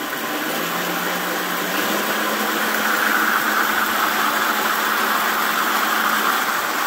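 2000 W brushless DC motor spinning a McLane reel mower's drive and reel blades: a steady motor hum that steps up in pitch about a second in, with a whirring hiss that builds over the next few seconds as the reel gets up to speed.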